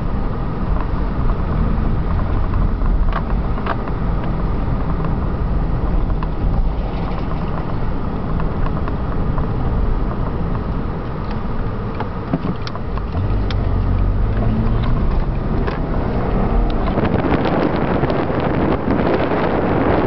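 Car driving on the road, heard from inside the cabin: a steady low rumble of engine and tyres, with a louder, wider rushing noise coming in about seventeen seconds in.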